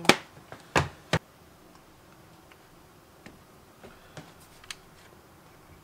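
Handling knocks and clicks of a cordless drill and small impact-driver parts being picked up and set on a work table: three sharp knocks within the first second or so, then a few faint ticks. The drill's motor is not running.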